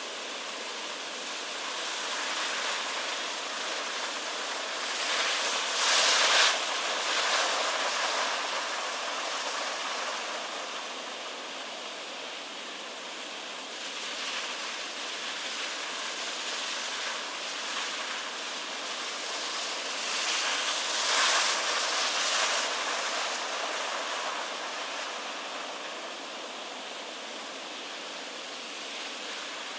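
Heavy ocean surf breaking and rushing onto the shore as a steady hiss of foam. It swells louder twice, about six seconds in and again around twenty-one seconds, as big waves crash.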